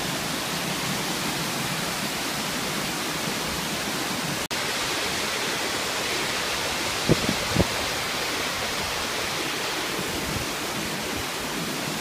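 Darbat waterfall's white water pouring over a rock lip close at hand: a steady, full rush of falling water. Two brief low thumps come about seven seconds in, and the sound drops out for an instant a little before that.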